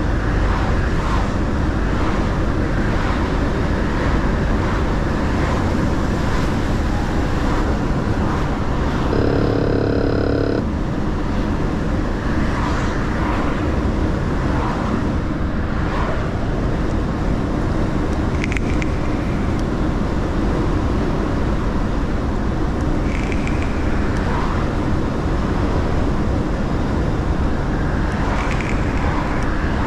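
Mercedes-Benz Actros L truck on the move: steady engine and road noise, with a short pitched tone about nine seconds in.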